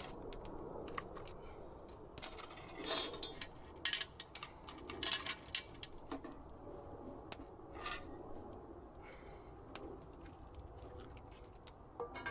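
Food packaging and gear being handled and rummaged through, in short, irregular crinkles, rustles and clicks that come in clusters.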